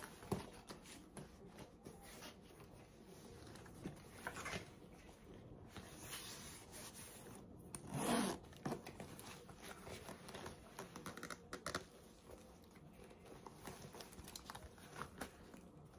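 Faint handling sounds of a smooth-leather Coach swinger shoulder bag and its strap: rustling and light clicks of the strap hardware, with a louder brushing sound about eight seconds in and a zipper being worked near the end.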